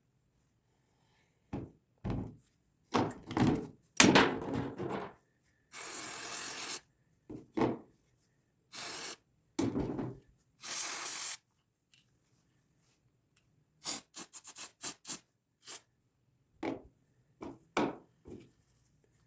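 Carburetor parts and hand tools being handled: scattered knocks, thunks and quick clicks, with a few short hissing bursts of about a second each.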